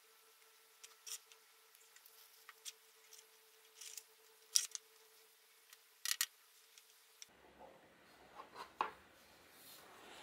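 Faint handling of stiff craft paper: soft rustles and scattered light clicks as small pre-cut paper pieces are pressed and glued onto a 3D papercraft model. A low steady hum sits under the first part.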